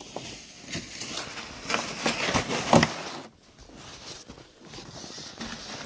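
Footsteps crunching through snow, an irregular run of crunches that is loudest in the first three seconds and quieter after that.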